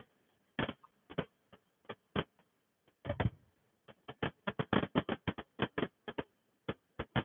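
Irregular short clicks and ticks, a few scattered ones at first, then a quicker run of about three to four a second from about four seconds in.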